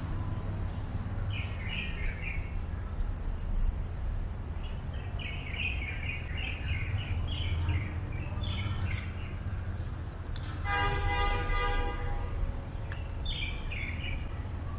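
Small birds chirping in several short flurries over a steady low background rumble. Past the middle, a held buzzy tone with many overtones sounds for nearly two seconds.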